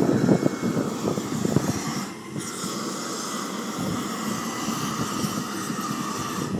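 Wind buffeting the microphone in gusts, easing about two seconds in and leaving a steady outdoor hiss with a faint high whine.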